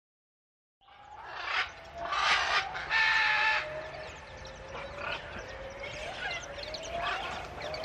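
A stick broom swishing across a concrete yard in short strokes, starting about a second in, with birds calling in the background.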